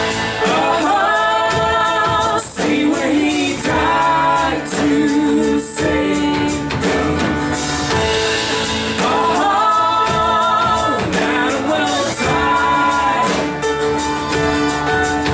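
Live worship music from a church band with singers: sung phrases a few seconds long over a steady held note.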